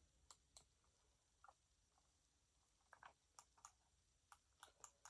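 Near silence with faint, scattered clicks of computer input, a few early and a quicker run of them in the second half.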